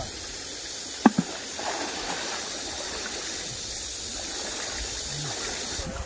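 Shallow stream water running and splashing around people wading in it. A single sharp knock about a second in. The water sound cuts off suddenly near the end.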